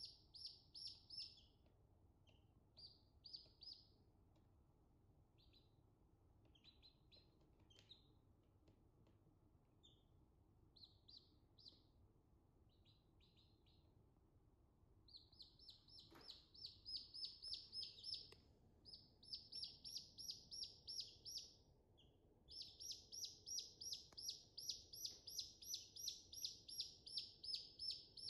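Domestic chicks peeping: quick runs of high peeps, about five a second, in short scattered bouts at first, then in longer, louder runs through the second half.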